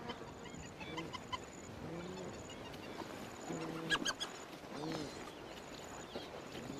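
Spotted hyenas calling in a dominance squabble: a string of short rising-and-falling calls about once a second, with a burst of sharper, higher squeals around the four-second mark.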